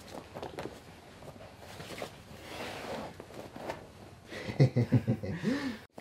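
Quiet rustling and soft contact of two grapplers shifting on a foam mat, with faint breathing. Near the end comes a short murmur of voice with sliding pitch, which cuts off abruptly.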